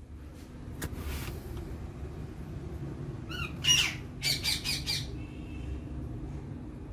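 Pet parrot squawking: one wavering call about three seconds in, then a quick run of four short squawks, over a steady low rumble.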